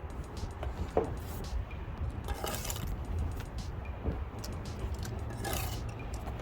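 Mason's steel trowel clinking and scraping against stone while working mortar, with a few sharp clicks and two short scrapes over a low steady rumble.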